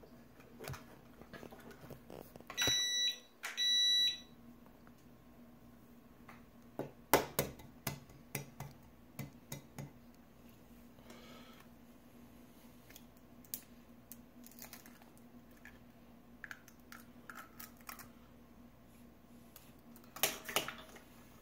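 Two short electronic beeps in quick succession, each about half a second. Later come scattered light taps and clicks as eggs are cracked on the rim of a glass measuring cup, with a cluster of them near the end.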